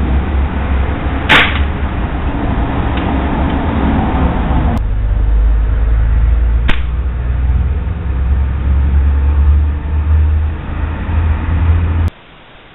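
Two air-rifle shots with pellets hitting an onion target, about five seconds apart, the first the louder, over a steady low rumble.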